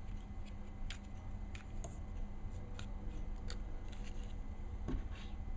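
Scattered light clicks and taps of small Glock pistol parts being handled while the slide lock and its pin are fitted back into the frame, about eight separate clicks with no rhythm, over a low steady hum.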